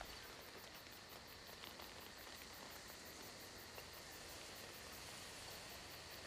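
Faint night ambience of crickets chirping in a fast, even pulse over a low steady hiss.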